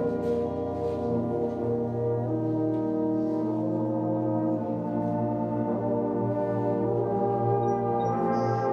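Community concert band playing slow, sustained chords, with the brass (horns and trombones) to the fore.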